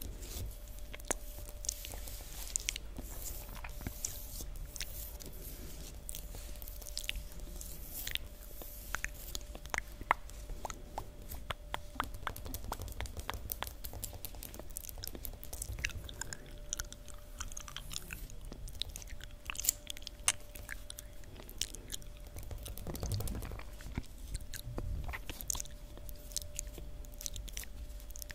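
Long fingernails tapping and drumming on a hard floor close to the microphone: a dense run of quick, irregular clicks, with wet mouth clicks mixed in. A faint steady hum sits underneath.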